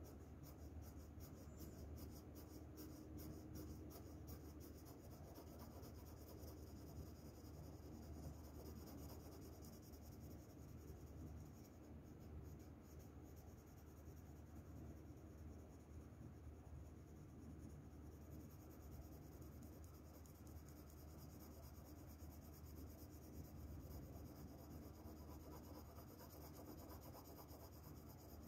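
Faint, steady scratching of a graphite pencil shading on paper.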